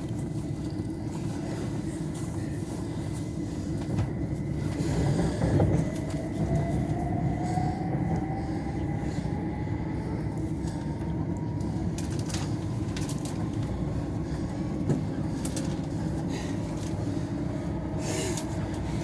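c2c electric passenger train running, heard from inside the carriage: a steady rumble of wheels and running gear, with a motor whine that slowly rises in pitch as the train picks up speed, and scattered short clicks.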